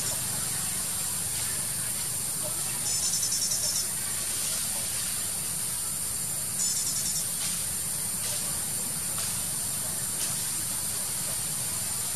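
Steady high-pitched drone of forest insects, with a short pulsing chirp trill twice, about three seconds in and about seven seconds in.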